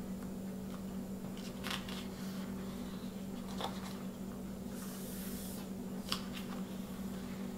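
Stiff printed paper being handled: a folded lyric insert opened and turned, with a few short rustles and light taps and a brief swish about five seconds in. A steady low hum runs underneath.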